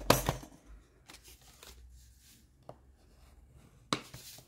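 Paper rustling and scraping as a folded sheet is handled and its fold pressed down, with a sharp tap about four seconds in.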